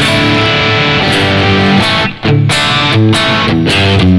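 Squier Stratocaster Affinity electric guitar played through a Yamaha THR10X amp on a distortion setting. The distorted chords and notes stop briefly about two seconds in.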